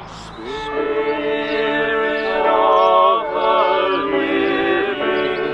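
A few voices singing a slow worship song together, holding long notes that slide between pitches.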